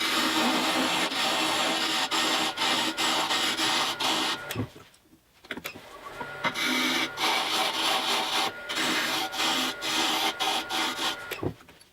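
A gouge cutting a spinning hardwood blank on a wood lathe: a steady, dense scraping with a faint whine under it. The cut stops about four and a half seconds in, starts again about a second and a half later, and stops once more near the end.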